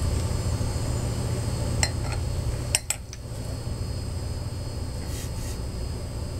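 A few light clinks and knocks of glassware and dishes on a tabletop: a couple of light ones about two seconds in, then two sharp clicks close together just before the middle, over a steady low hum.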